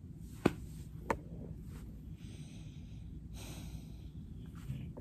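A woman breathing out audibly through the nose twice, over a low rumble, after two sharp clicks about half a second apart near the start.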